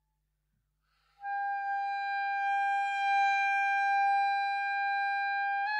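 Soprano saxophone holding one long, steady note that comes in about a second in after a short silence, rising slightly in pitch near the end.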